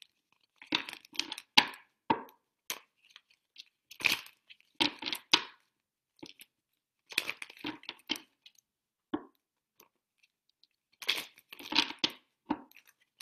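A deck of cards being shuffled by hand: irregular crisp rustling and snapping of the cards in short clusters, with gaps of a second or so between them.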